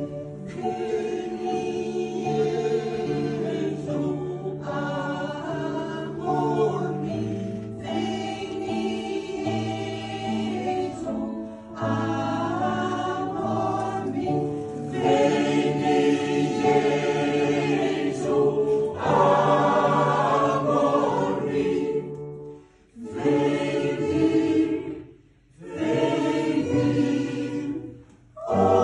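Mixed choir of men and women singing in parts, with held low notes under the melody. The singing breaks off briefly three times near the end, between phrases.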